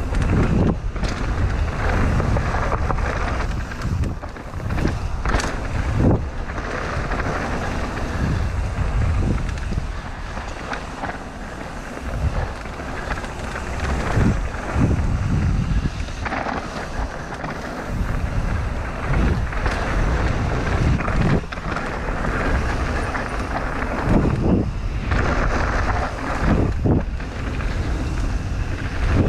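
Mountain bike riding fast down a dirt trail: wind rushing over the microphone, tyres rolling on packed dirt, and frequent knocks and rattles as the bike hits bumps.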